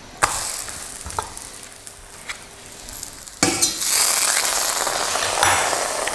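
A vegan pancake frying in a hot frying pan. The sizzling hiss jumps up about a quarter of a second in and eases off, with a couple of light clicks. It rises sharply and stays loud from about three and a half seconds, as the pancake is turned and laid back down in the pan.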